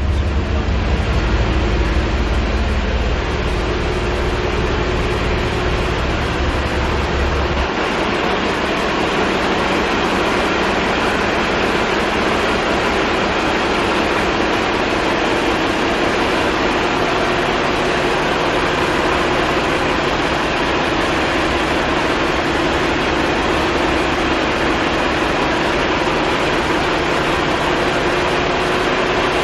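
MTU marine diesel main engine running steadily at idle while it warms up, a loud, even engine-room drone with a constant hum. A heavy low rumble is mixed in for the first eight seconds or so, then drops away.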